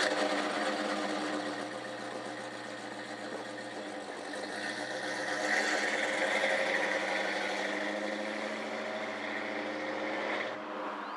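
Classic Dodge car's engine and dual exhaust running, then pulling away and driving off. The engine note swells about five or six seconds in, then fades as the car moves away and cuts off suddenly near the end.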